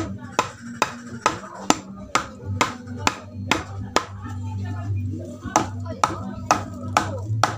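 Hammer blows on wood, a steady run of about two sharp strikes a second with a short pause in the middle, while music plays underneath.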